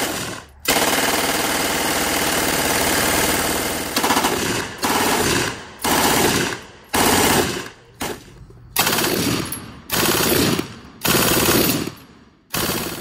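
MG-42 machine gun firing full-auto at its very high rate of fire. A short burst opens, then comes one long burst of about four seconds, then a string of about seven bursts of roughly a second each with short pauses between.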